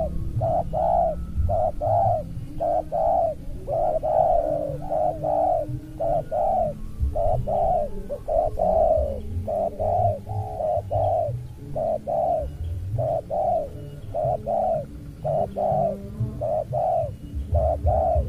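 Spotted doves (tekukur) cooing: a dense, continuous run of short, low coo notes repeating about two or three times a second.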